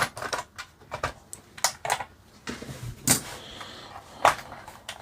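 Irregular sharp plastic clicks and knocks as a toy helicopter's remote control is handled and its battery compartment opened, the loudest a little after three seconds and again just after four.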